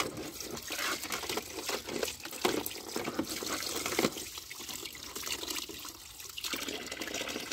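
Tap water pouring into a plastic bucket of water as a plastic toy helicopter is rinsed and moved under the stream, with irregular splashes.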